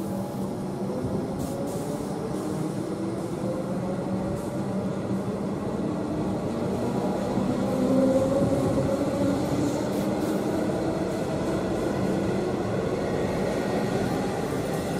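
Melbourne suburban electric train pulling away, its motors giving a whine that rises slowly in pitch as it accelerates over a steady rumble of wheels on rail.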